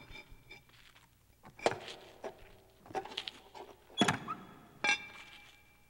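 Sound effects of a key being worked in the metal lock of an old trunk: a handful of sharp metallic clacks and clicks about a second apart, the louder ones ringing briefly.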